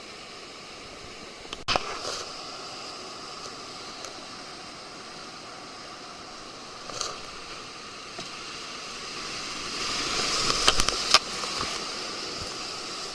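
River water rushing steadily, with a few short splashes. It grows louder about ten seconds in, with several sharp splashes close together.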